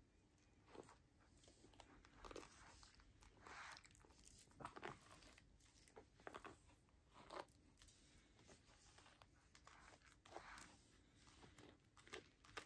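A bristle hairbrush drawn through a dog's long, fine hair, making a series of faint, irregular swishes about one a second.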